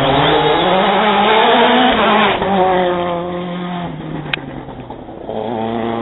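Rally car engine at full throttle as the car passes at speed: the engine note climbs for about two seconds, then changes at a shift and falls away, fading. There is a sharp click about four seconds in, and another engine note comes in near the end.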